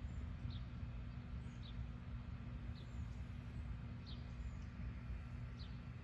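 A bird repeating a short, high, falling chirp about once a second, five times, over a steady low rumble of outdoor background noise.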